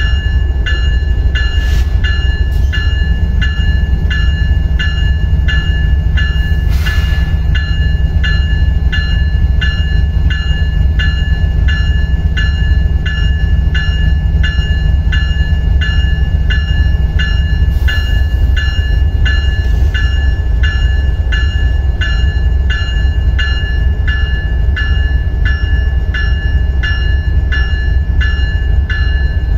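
Electronic locomotive bell (E-bell) of Ferrosur locomotive 4720 ringing steadily, about two strikes a second, over a low rumble.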